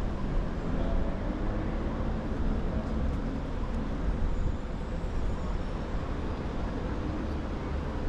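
Steady road traffic from passing vehicles on a busy city road, an even rumble with no single standout event.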